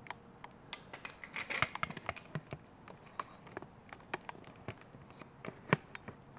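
Scattered light clicks and taps, a few a second at irregular spacing, with one louder click near the end, as the LS1 engine is turned over by hand to sweep a dial indicator around the bellhousing bore.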